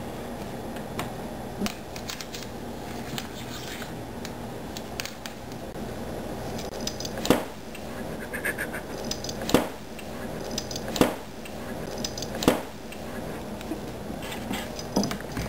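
Four sharp knocks in the second half, one to two seconds apart, with light scratchy clicks and a steady low hum between them.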